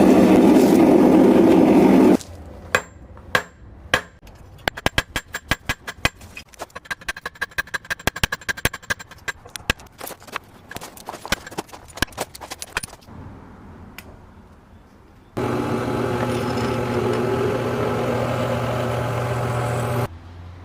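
Hand hammer striking hot metal on an anvil in a quick run of blows, about four a second at the busiest, forging a pendant. It is framed by a loud steady rushing noise for the first two seconds and another steady noise with a low hum from about three quarters of the way in.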